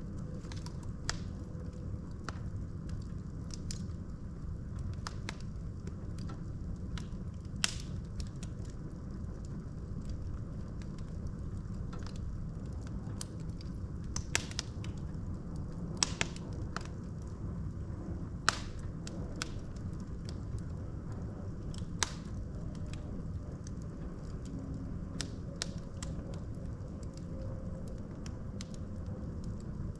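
Wood fire in a fireplace, logs burning with irregular sharp crackles and pops, a few louder snaps standing out, over a steady low rumble of the flames.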